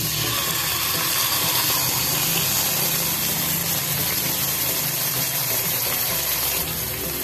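Marinated pork steak sizzling in hot cooking oil in a frying pan: a loud, even hiss that starts suddenly as the meat goes into the oil and eases slightly near the end.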